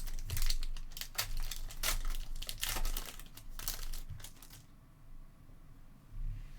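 Trading cards and their plastic or foil packaging being handled: quick crinkling, rustling and sliding as the cards are shuffled and flicked through, stopping about four and a half seconds in.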